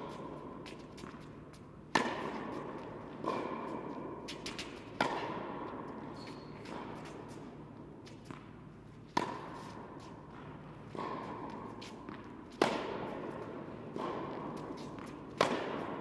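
Tennis ball struck by a racket in a baseline rally, with a sharp hit every three to four seconds and softer knocks in between. Each hit rings on in the echo of a large indoor tennis hall.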